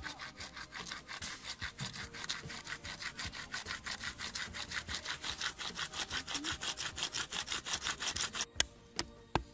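A broad steel blade being sharpened on a flat stone slab: fast, even back-and-forth strokes of steel grinding across stone, about five a second. The strokes stop abruptly near the end and are followed by three sharp clicks.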